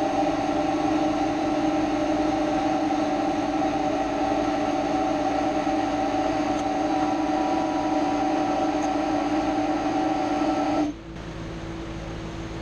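Kobalt air compressor running steadily with a hiss, then shutting off abruptly about eleven seconds in, leaving only the lower steady hum of a shop fan. No unloader hiss follows the shutoff, which the owner takes for a pop-off line that is stopped up again.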